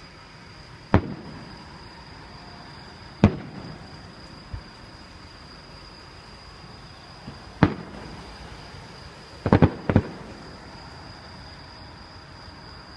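Fireworks shells bursting overhead: single sharp bangs about one second, three seconds and eight seconds in, then a quick cluster of three or four bangs around ten seconds. Each bang trails off in an echo. A steady high insect trill runs underneath.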